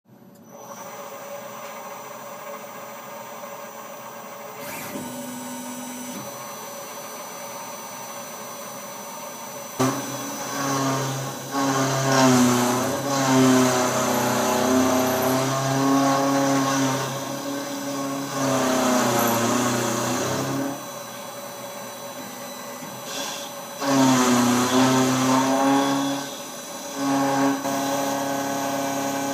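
Tormach PCNC 770 CNC mill face-milling excess brazed bronze off a steel part. The spindle runs with a steady whine, and from about ten seconds in the cutter bites into the bronze and steel in loud stretches of ringing cutting noise whose pitch wavers, easing back to the spindle whine between passes.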